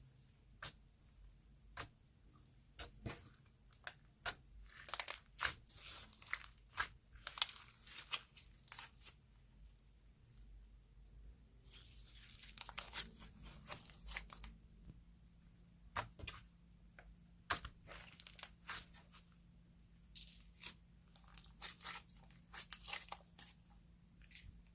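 Soft clay slime being stretched and pressed by hand, giving sharp sticky clicks and stretches of crackling, tearing sound.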